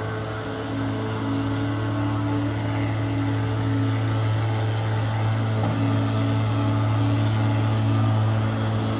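Diesel engines of a Volvo compact excavator and a tipping dump truck running steadily, a low even hum with no distinct knocks or impacts.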